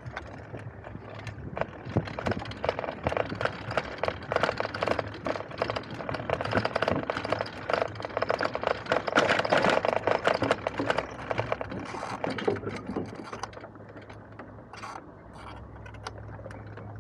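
E-bike clattering and rattling as its tyres roll over the planks of a wooden boardwalk: a rapid, uneven run of clicks and knocks that thins out near the end.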